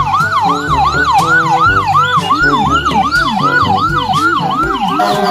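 Ambulance siren in the fast yelp pattern, a tone sweeping up and down about three times a second, with a lower sweep joining about halfway through. Background music plays underneath.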